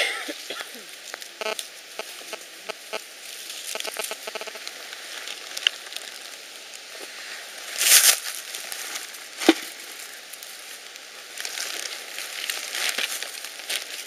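Rustling and crackling of grass, moss and dry leaf litter under hands and feet on the forest floor, with a louder rustle about eight seconds in and a sharp click soon after.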